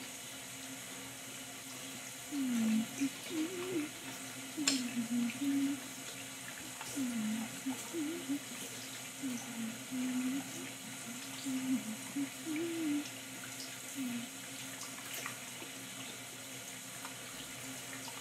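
Bathroom faucet running steadily as a doll's hair is rinsed under the stream. Over the water, from about two seconds in until about fourteen seconds in, a voice hums in short wavering low notes.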